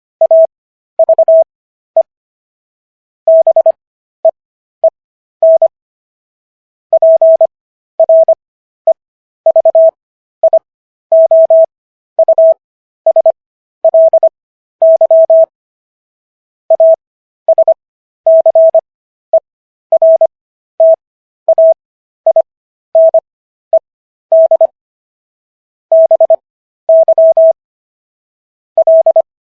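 Morse code sent as a single-pitch beep tone keyed on and off in dots and dashes. The characters are sent at 25 words per minute, with Farnsworth spacing stretching the gaps between letters and words so that the overall speed is 15 words per minute.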